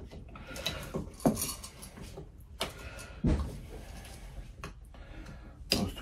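Scattered clicks and knocks from handling a three-way wall switch and multimeter test leads while its terminals are probed for continuity.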